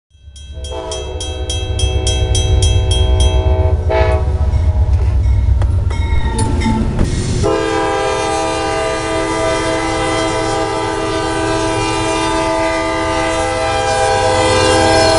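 Diesel freight locomotive's air horn blowing one long, steady blast of several notes at once for a grade crossing, over the heavy rumble of the train. In the first few seconds a horn chord also sounds with a rapid ringing of about three or four strokes a second from the crossing bell.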